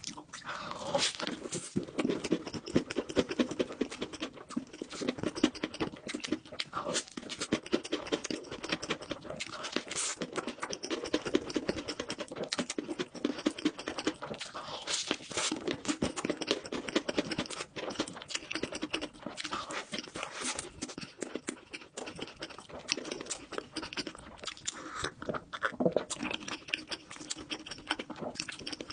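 Close-miked ASMR eating sounds: a person chewing food, with a steady stream of quick wet mouth clicks and smacks.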